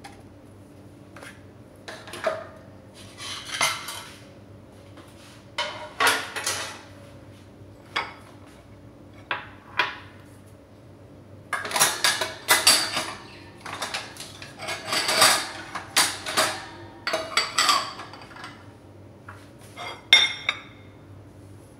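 Dishes and cutlery clinking and clattering in irregular bursts, busiest past the middle.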